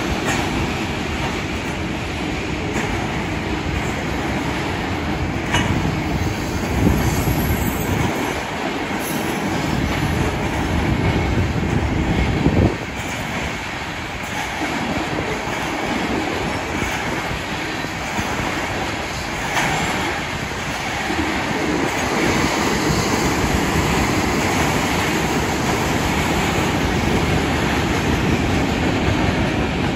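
Norfolk Southern freight cars (flatcars loaded with rail, then tank cars) rolling steadily through a grade crossing: a continuous rumble of steel wheels on rail with rhythmic clacking and a few sharper clanks, the loudest about halfway through.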